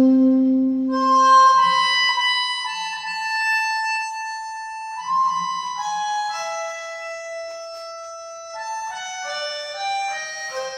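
Music of melodica (pianica) tones holding long notes that step from one pitch to the next, gathering into overlapping chords near the end. A low alto saxophone note dies away about a second and a half in.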